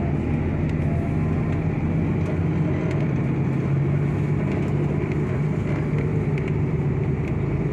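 Tour bus engine running at a steady low hum, heard from inside the cabin while the bus drives along.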